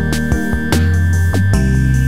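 Background music with a steady beat over held bass notes, the bass changing pitch about halfway through.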